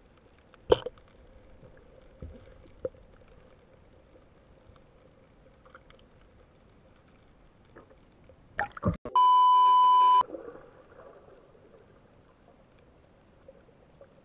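Faint underwater hiss with a few sharp knocks, and about nine seconds in a loud, steady, high-pitched censor beep lasting about a second.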